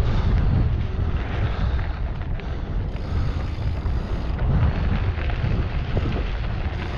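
Wind buffeting the microphone of a handlebar camera on a moving mountain bike, a steady low rumble, with the knobby tyres rolling over a dirt trail.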